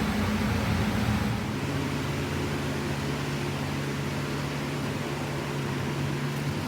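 A vehicle engine running steadily. Its hum drops in level and pitch about a second and a half in, then holds even.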